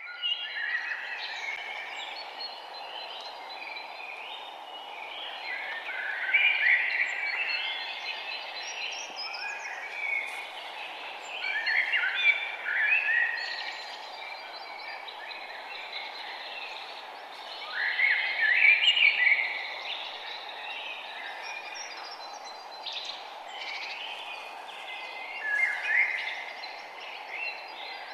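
Several forest birds singing and chirping over a steady background hiss, with one louder song phrase returning about every six seconds.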